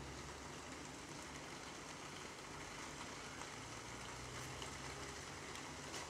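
Faint steady hiss with a low hum underneath: background room tone.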